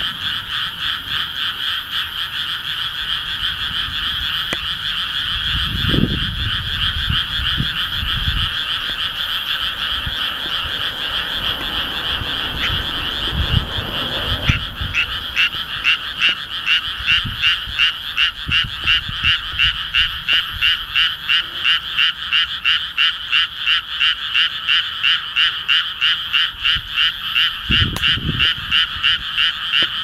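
Frogs calling in a chorus of pulsed croaks that runs throughout. From about halfway the calls fall into a loud, even rhythm of about three a second.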